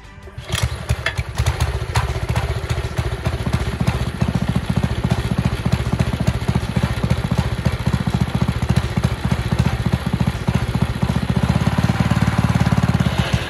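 Single-cylinder four-stroke Briggs & Stratton 205cc engine on a reel-type greens mower. It starts about half a second in and runs with a fast, even firing beat, then stops near the end.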